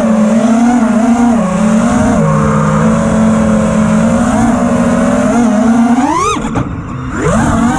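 The brushless motors and three-blade 5-inch propellers of an FPV freestyle quadcopter (T-Motor F60 Pro IV 1750kv motors, Ethix P3 props), heard from the onboard camera as a whine that rises and falls with throttle. About six seconds in, the pitch shoots up and then falls away as the throttle is chopped. The motors spool back up about a second later.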